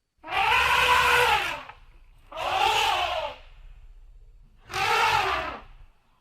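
Elephant trumpeting three times, each call about a second and a half long, with the pitch rising and then falling.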